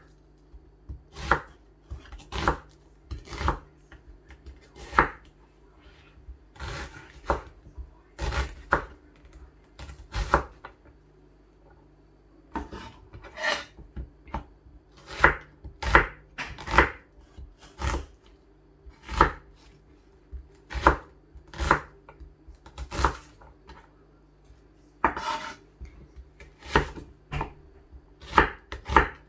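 Chef's knife slicing a red onion and knocking on a wooden chopping board: irregular sharp knocks about once a second, with a short pause partway through.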